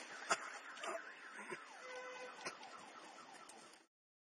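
Faint warbling siren, its tone sliding up and down over and over, with a few sharp clicks; it cuts off abruptly near the end.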